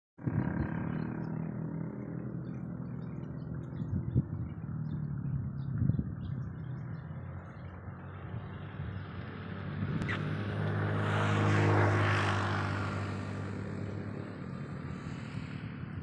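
Motor vehicle engine running steadily, with a vehicle passing by that grows louder to a peak about twelve seconds in, then fades.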